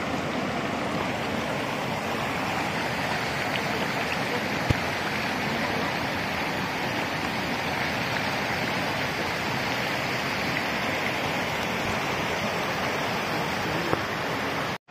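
Shallow stream water rushing and splashing steadily over rock slabs and small cascades at the top of a waterfall. A single brief click about five seconds in.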